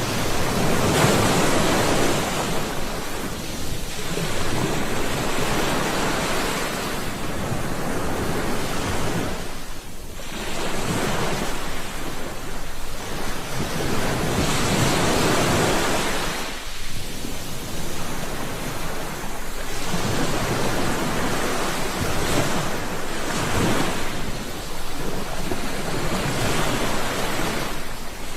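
Ocean waves breaking and washing in, the surf swelling and ebbing in long surges with brief lulls between them.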